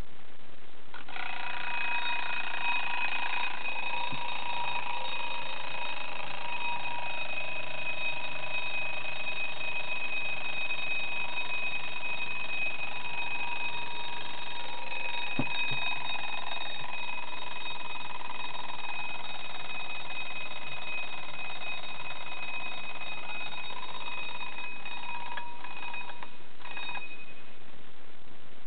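Vintage Chinese Polaris alarm clock's alarm ringing continuously. It starts about a second in, runs for over twenty seconds and stops near the end with a few clicks.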